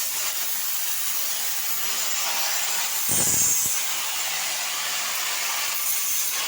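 CNC cutting machine running, a steady high hiss, louder for about half a second around three seconds in.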